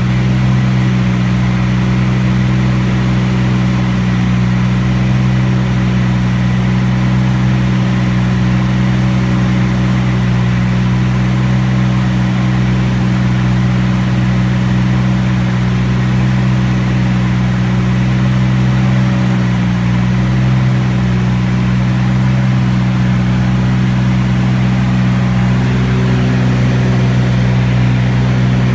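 Piston aircraft engine and propeller droning steadily at constant power, heard from on board in flight, its tone shifting slightly near the end.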